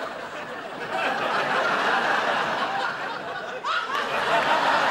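Studio audience laughing throughout, with a short rising whoop from the crowd about three and a half seconds in.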